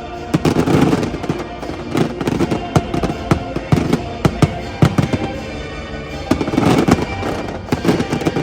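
Fireworks show: many aerial shells bursting in quick, uneven volleys, sharp bangs heard over the show's music soundtrack.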